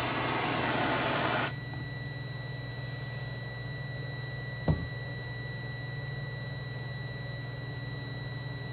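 Multimeter continuity beeper sounding one steady high tone: the fan switch has closed in the hot water. A loud steady hiss cuts off about a second and a half in, and there is one knock around the middle.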